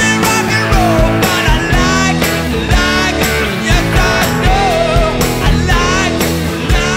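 Live rock band: a male lead singer belting a melody over electric guitars, piano and drums, with a steady beat of about two drum hits a second.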